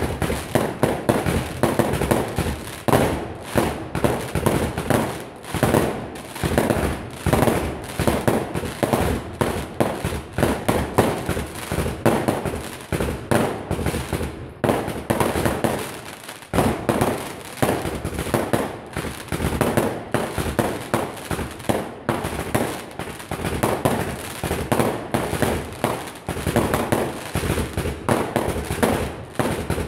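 Fireworks: a dense, unbroken barrage of firecracker bangs, many per second, with louder cracks standing out about once or twice a second.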